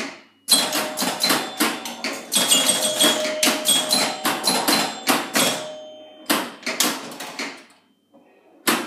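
Electromechanical pinball machine (1975 Gottlieb Pin Up) in play: a fast, uneven clatter of coil-driven clacks from flippers, bumpers and scoring, several strikes followed by short ringing bell tones. The clatter thins out and stops about eight seconds in, with one more sharp clack just before the end.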